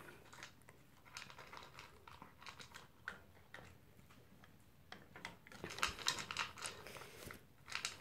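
Dog eating its breakfast from a bowl: faint, irregular crunching and chewing, busier and louder about six seconds in.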